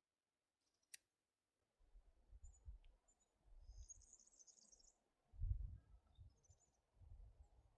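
Faint songbird chirps, a short high cluster a little before the middle and a few more near the end, over a few low rumbling gusts. There is one sharp click about a second in.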